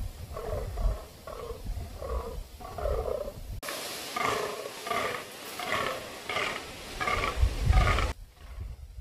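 Fallow buck croaking in the rut: a steady run of short, repeated croaks about two a second, with a low rumble underneath. The croaks come closer and louder from about three and a half seconds in.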